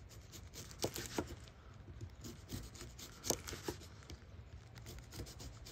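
TRC Classic Freedom knife slicing a cucumber on a wooden board: quiet rubbing of the blade through the flesh with a few irregularly spaced taps as the edge meets the board.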